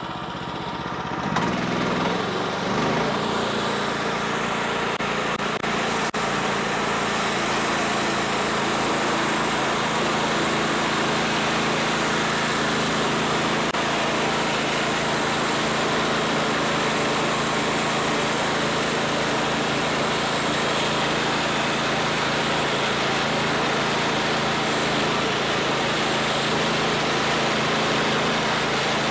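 Homemade band sawmill running under load as its band blade cuts through a log: a small engine picks up speed about two seconds in, then runs steadily with the whine of the blade in the wood.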